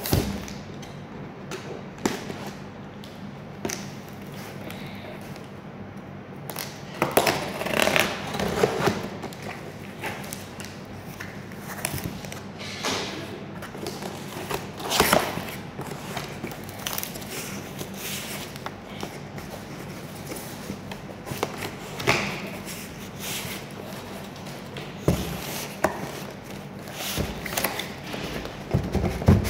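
Cardboard box of an HP V194 monitor being handled and opened: scattered scrapes, rustles, taps and thuds as the packaging is worked and the box is turned over, over a steady low hum.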